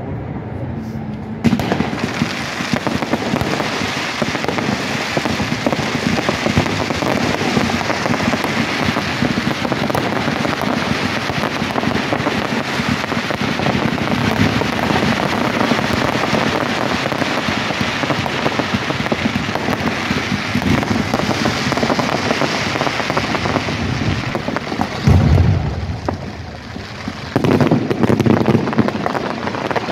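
Fireworks display: a dense, continuous crackle of crackling-star effects, like a downpour, starting about a second and a half in, with deeper booms near the end.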